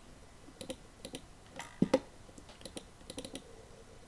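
Computer keyboard and mouse clicking: light, irregular clicks, often in pairs or short runs, with two sharper clicks about two seconds in.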